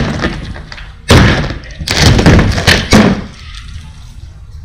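A plywood shipping crate being broken apart with a sledgehammer, heavy wooden crashes and knocks as its panels are struck and fall flat onto pavement. There is a hard crash about a second in, then a quick run of several hits around two to three seconds in, each leaving a low rumble.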